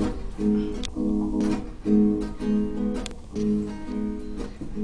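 Acoustic guitar played solo, one chord pattern strummed and re-struck about every half second, as the introduction to a song.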